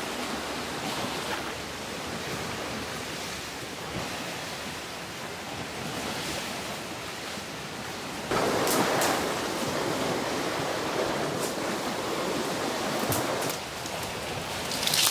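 Sea surf washing against a rocky shore, mixed with wind, as a steady rushing noise. It gets louder about halfway through for about five seconds, then drops back.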